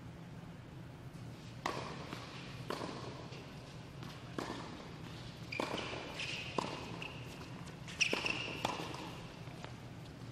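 Tennis rally on an indoor court: a tennis ball struck by rackets and bouncing, about seven sharp pops roughly a second apart that echo in the hall, the loudest near the end. Short high squeaks come in the middle and near the end.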